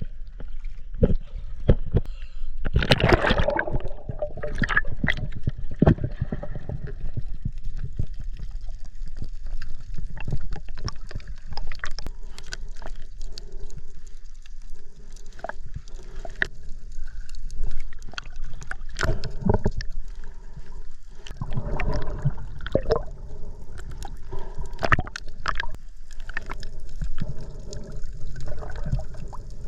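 Water sloshing and gurgling, with frequent irregular knocks and splashes over a steady low rumble.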